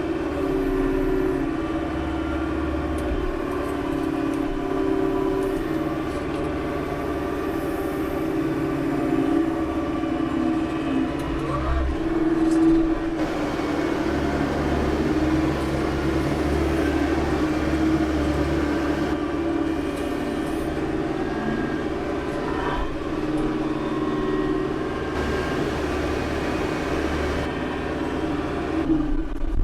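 Branson tractor's diesel engine running steadily at high revs, about 2,800 rpm, its pitch wavering slightly as it works under load moving a heavy stump with the grapple.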